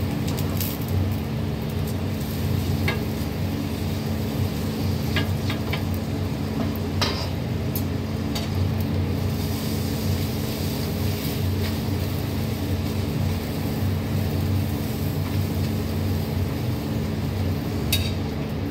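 Steady hum of an electric fan mixed with the sizzle of a paratha frying in oil on the stove, with a few light clinks scattered through.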